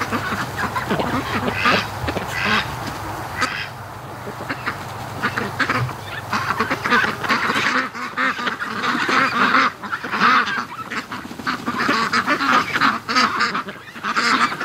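A flock of domestic ducks calling, with many short honking quacks repeated and overlapping, growing busier about halfway through.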